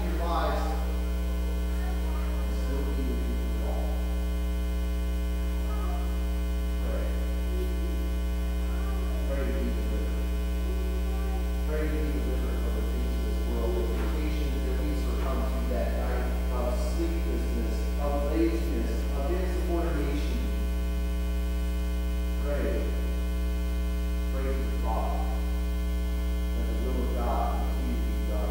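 Steady electrical mains hum, a low buzz that holds unchanged throughout, with a faint man's voice now and then underneath it.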